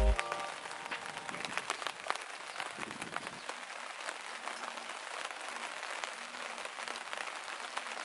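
Light rain pattering on a tarpaulin: a dense, even crackle of many small drops.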